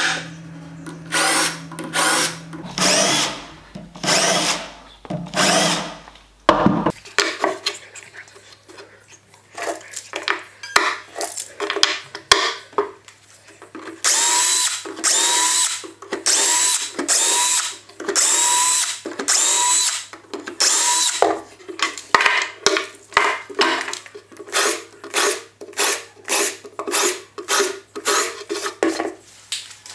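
Festool cordless drill boring a row of shelf-pin holes in an oak cabinet side through a drilling jig, in many short bursts. The bursts come about one a second and faster near the end, several starting with a brief rising whine as the motor spins up.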